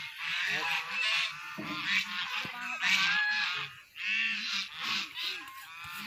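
Geese honking repeatedly in a string of short, nasal calls.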